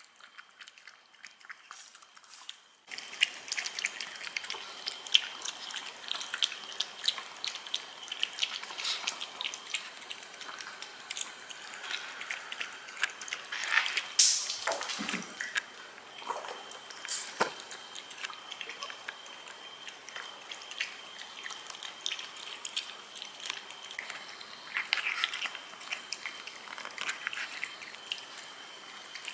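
A dog lapping and chewing freeze-dried food soaked in a cheese-and-salmon soup, heard as a run of small wet licks and smacks that starts about three seconds in.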